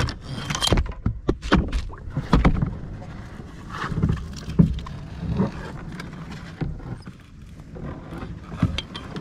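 Irregular knocks, bumps and rustling of a kayaker shifting in his kayak, handling his paddle and grabbing at overhanging branches and twigs.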